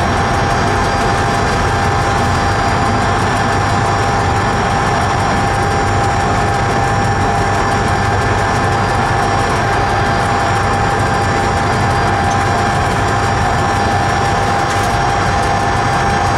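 Electric train running steadily through a long railway tunnel, heard from inside the train: a continuous loud rumble of wheels and running gear with a steady high whine on top.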